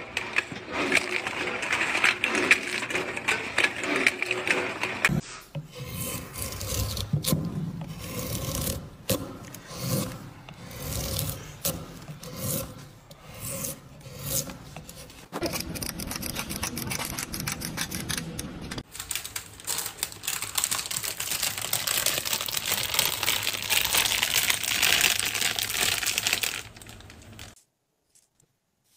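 A run of rubbing and scraping sounds of tools working material, among them a hand chisel paring shavings from a block of wood in repeated strokes about once a second. It drops to near silence shortly before the end.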